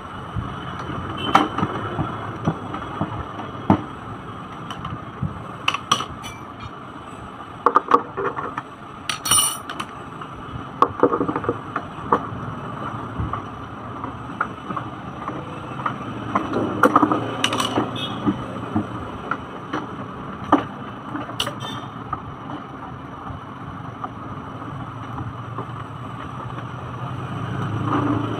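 Hard plastic clicks, knocks and rattles as a plastic ride-on swing car is handled, turned over and its wheel parts fitted, scattered irregularly over a steady background noise.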